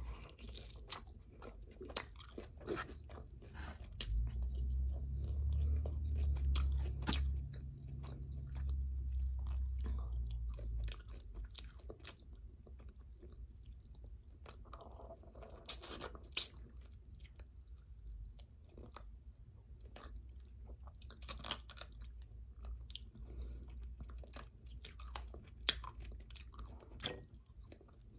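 A person chewing and crunching fried chicken wings and fries, with many short crunchy clicks. A low rumble sounds from about four to eleven seconds in.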